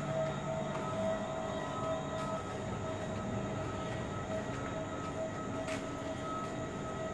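A train running through the railway station: a steady rumble with a steady humming whine over it.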